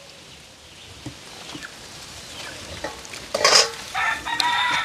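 A rooster crows a little over three seconds in: a harsh start, then a held, pitched note near the end. A faint steady hiss lies under it.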